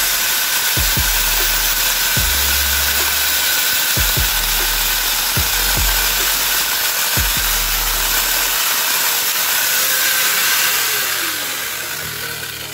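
Small mains-powered electric chainsaw (a J.LD Tool 12-inch chain and bar driven by an angle-grinder-type motor) running at full speed and cutting through a fresh rambutan branch, with a few low knocks. Near the end it is switched off and winds down with a falling whine.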